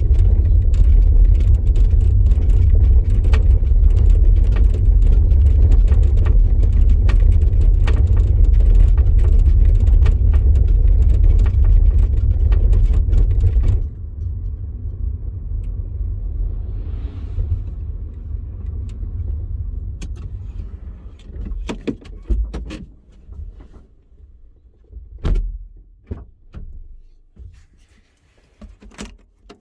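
VW e-Up electric car on the move: steady low road and tyre rumble with scattered clicks and knocks, the kind of rear-axle noise the owner is asking about. About halfway through the rumble drops sharply and then fades away as the car slows, leaving only a few separate knocks near the end.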